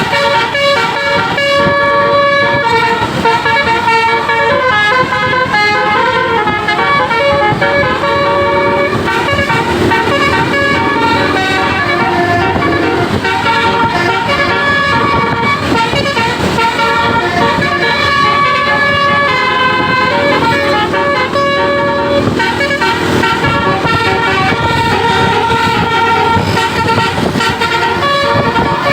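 Bus 'telolet basuri' musical air horns playing a melody: several horn tones sounding together and stepping quickly from note to note without a break.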